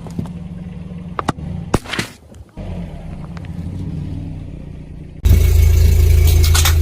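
A car's tyres crushing objects over the low hum of its engine: several sharp cracks and crunches in the first two seconds. A little after halfway, a much louder, close-up stretch of engine and tyre noise begins suddenly.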